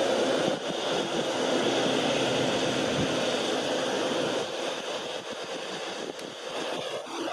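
Rolls-Royce Trent 1000 jet engines of a Boeing 787-8 running as the airliner rolls along a wet runway: a steady, broad rushing noise that eases off somewhat in the second half as the aircraft moves away.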